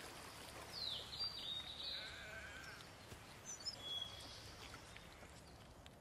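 Faint outdoor field ambience with a few short, high calls and chirps during the first few seconds.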